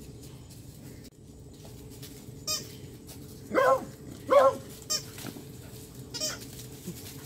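A beagle gives two short, high-pitched yips less than a second apart, with a few brief clicks before and after.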